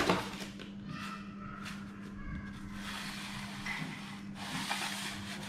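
Plastic packaging rustling and crinkling as it is handled and moved aside, in irregular patches that grow denser in the second half, after a knock right at the start. A faint steady low hum runs underneath.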